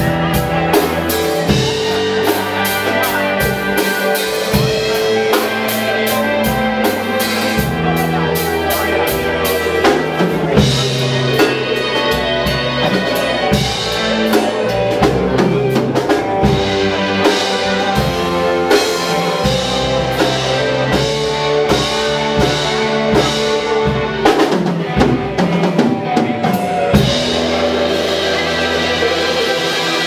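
Live rock band playing: electric guitars, electric bass and a drum kit, amplified through stage speakers. About three seconds before the end the drumming drops away, leaving held guitar and bass notes.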